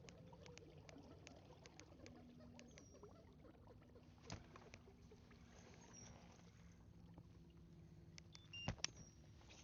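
Faint kayak handling sounds: scattered light clicks and a soft knock about four seconds in, then two sharper clicks near the end.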